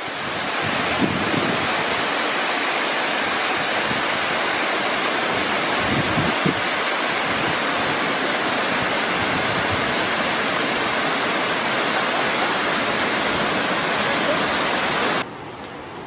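Mountain waterfall cascading over rocks: a steady, loud rush of falling water. Near the end it cuts off suddenly to a much quieter hiss.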